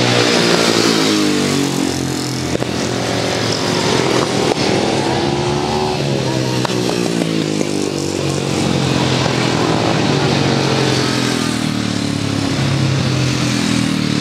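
Engines of several vintage grass track racing motorcycles running hard around the dirt oval, their pitch rising and falling again and again as the riders open and close the throttle through the bends.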